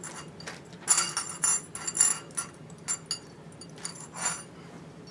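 Small metal parts clinking and tapping: a metal drawer handle and its screws being handled against the sheet-steel drawer front, about a dozen sharp, ringing clinks.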